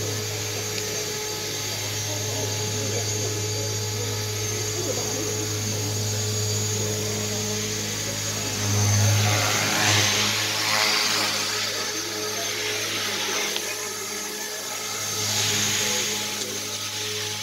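Radio-controlled model helicopter in flight: a steady drone of its motor and rotor that swells louder twice, about halfway through and again near the end.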